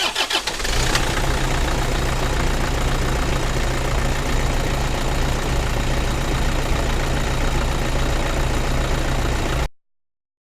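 Toyota Innova's four-cylinder D-4D diesel engine catching right at the start and then idling steadily with a diesel knock, running after the fuel filter has been replaced. The sound cuts off abruptly near the end.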